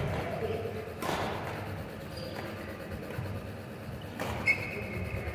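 Badminton play in an echoing indoor hall: a few sharp racket strikes on the shuttlecock, the loudest about four and a half seconds in, among dull thuds of players' footwork on the court.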